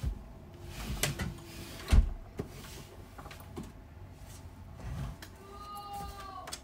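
A chair being moved and turned around: a few separate knocks and bumps, the loudest about two seconds in, and a short squeak near the end.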